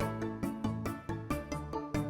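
Instrumental background music with evenly paced notes.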